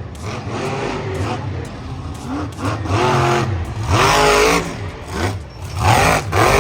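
Engine revving sound for a toy monster truck, rising and falling in pitch several times over a steady low hum.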